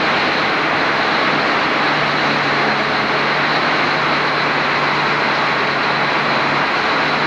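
Steady running of heavy construction equipment: a constant engine drone with a low hum under it.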